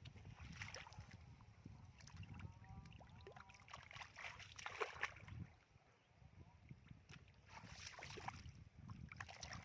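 Faint sloshing and splashing of shallow muddy water, in short irregular bouts.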